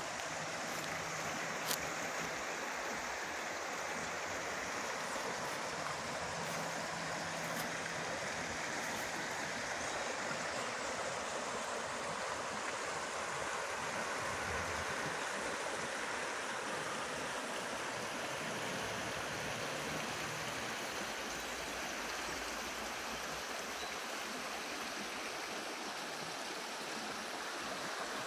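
Shallow stony river running over gravel and rocks: a steady, even rush of water.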